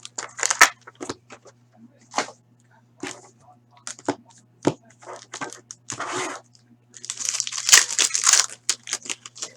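Plastic wrapping on a box of trading cards being torn open and crinkled, in short sharp bursts with a longer spell of tearing and rustling near the end. A faint steady hum runs underneath.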